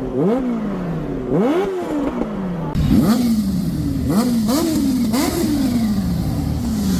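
Kawasaki Ninja H2's supercharged inline-four being revved at a standstill in sharp throttle blips, each rising quickly and falling back. The blips come about every second and a half at first, then faster, roughly two a second, from about three seconds in.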